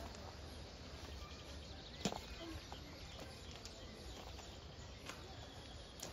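Faint outdoor ambience: a low steady rumble with a few scattered sharp clicks, the loudest about two seconds in.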